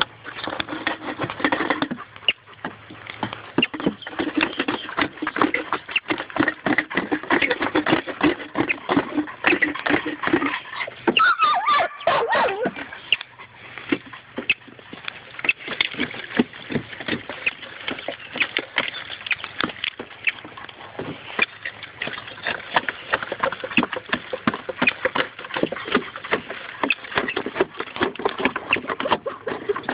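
German shorthaired pointers clawing and scrabbling at a hollow tree where they have a rockchuck cornered: dense rapid scratching and clicking of claws on wood, with dog whining. About eleven seconds in, one whine falls steeply in pitch.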